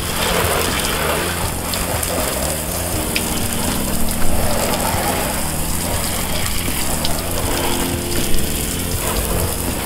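Water from a garden hose spray nozzle hitting a pickup truck's body panels, a steady hissing spatter, with background music underneath.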